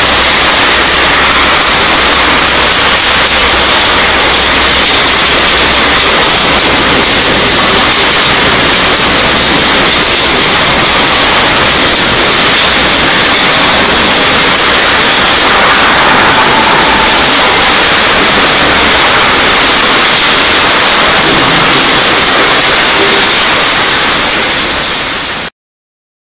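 Wet separation machinery in an electronic-waste recycling plant running: a loud, steady, even noise of machinery and water pouring over a rotating drum. It cuts off suddenly near the end.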